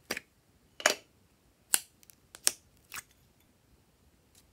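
Small hexagonal plastic slime container being pried open by hand: five sharp plastic clicks and snaps over about three seconds as the halves come apart.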